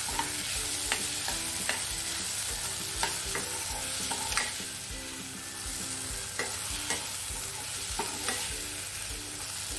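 Diced potatoes, onions and tomatoes sizzling in oil in a kadai while a spoon stirs them, with short scrapes and taps of the spoon against the pan now and then.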